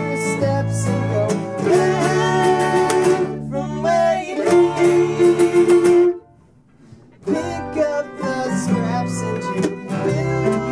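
A string band playing live: mandolin, cello and bass guitar, with singing. The whole band stops dead about six seconds in, holds the gap for about a second, then comes back in together.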